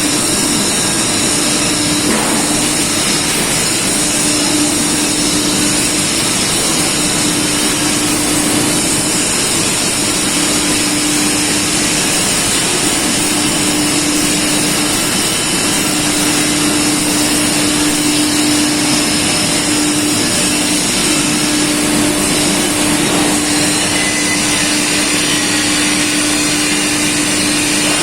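Air-assisted airless paint sprayer running and spraying epoxy: a steady hiss with a steady hum underneath that drops out briefly now and then.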